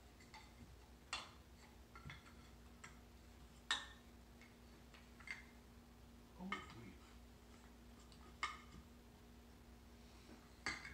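Curved wooden toy train track pieces clacking and knocking together as they are handled and fitted, about eight scattered sharp clicks.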